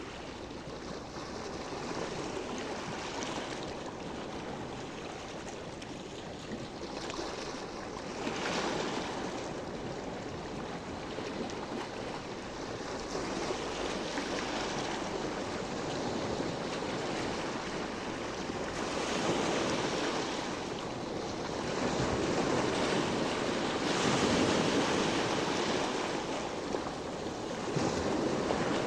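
Sea waves washing onto the shore, the surf swelling and easing every few seconds, with some wind on the microphone.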